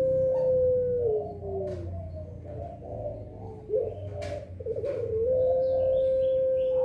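Puter pelung, a long-voiced domestic Barbary dove, cooing: a long held note that drops and falls away about a second in, a couple of short notes, then a second long held coo beginning about five seconds in.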